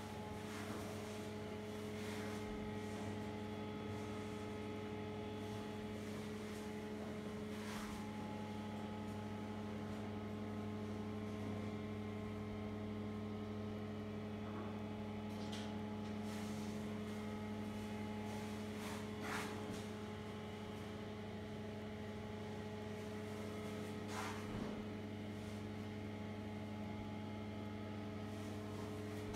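Steady low electrical mains hum, with a few faint clicks scattered through.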